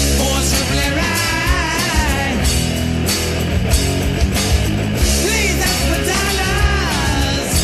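Hard rock band recording: electric guitar, bass and drums with a steady beat, and a high lead line that bends and wavers in pitch twice.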